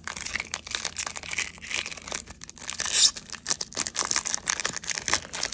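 Foil-lined wrapper of a Topps baseball card pack being torn open and crinkled by hand. It makes a dense run of crackling with a louder rip about three seconds in.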